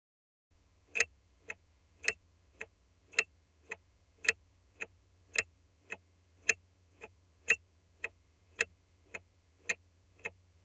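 Car turn-signal indicator ticking in a steady tick-tock: a louder click alternating with a softer one, about two clicks a second, starting about a second in over a faint low hum.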